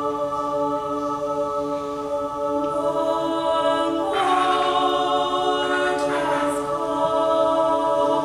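Chamber choir singing a cappella: sustained chords that shift a few seconds in, with a brighter, higher line coming in about halfway through.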